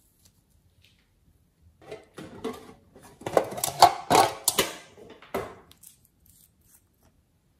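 Hard plastic case being handled and opened: a run of clicks and rattles a couple of seconds in, loudest in the middle, with one more click shortly after.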